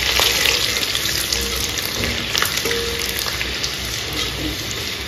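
Chopped garlic and cloves sizzling in hot oil with cumin and bay leaves in a kadhai, stirred with a spatula that scrapes and clicks against the pan now and then.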